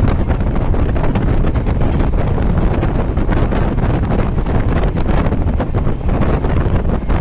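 Wind buffeting the microphone over the steady rumble of a moving express train, with rattles and clatter running through it.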